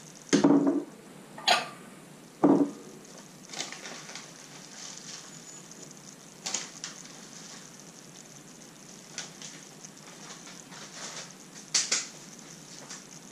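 Ceramic bowls being set down and moved on a kitchen countertop. There are three sharp knocks in the first three seconds, then a few lighter knocks, with one more near the end.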